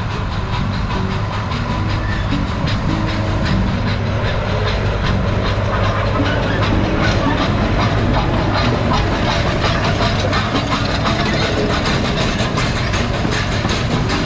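Nilgiri Mountain Railway X-class steam locomotive running past at close range with a train of hopper wagons, with steam hiss and rapid clicking of the wheels on the track. It grows a little louder as the engine and wagons come by.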